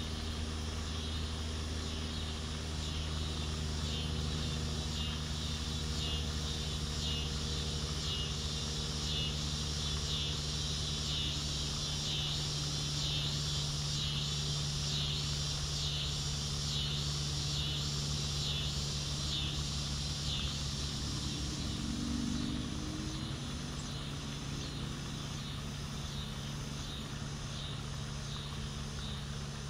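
Insects chirring in a chorus that pulses in an even rhythm, strongest through the middle and fading toward the end, over a steady low mechanical hum.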